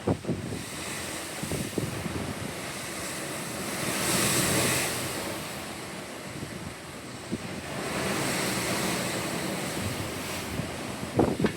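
Pacific Ocean waves washing in, the surf swelling twice, with wind buffeting the microphone in short thumps at the start and again near the end.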